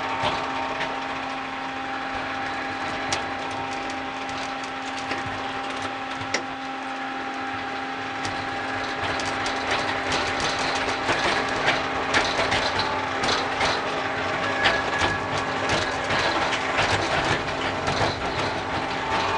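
Miniature ride-on train, a model of the HB-E300 Resort Shirakami, running along its narrow track: a steady motor hum under the rattle of the small car. The wheels click and clatter over rail joints and points, busier in the second half.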